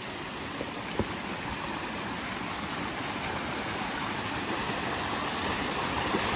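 Small forest stream running over rocks, growing louder as it is approached, with a single sharp knock about a second in.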